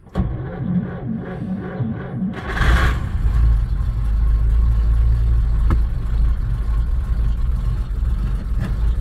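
1938 DeSoto's six-volt starter cranking the cold flathead six for about two and a half seconds until it catches with a brief rev, then the engine running steadily at a fast cold idle, heard from inside the cabin.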